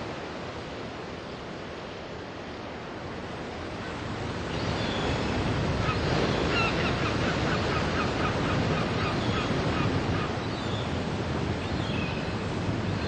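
Surf washing onto a beach, swelling about four seconds in, with gulls calling: a run of quick repeated cries from about five to ten seconds in, and a few more near the end.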